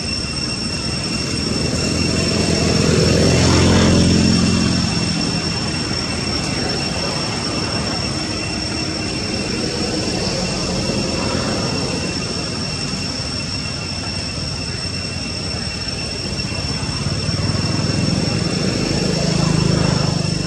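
A passing engine swells up and fades away about four seconds in, and another builds near the end, over a steady high-pitched drone.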